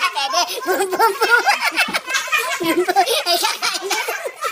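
A group of women and girls laughing together in quick, overlapping bursts.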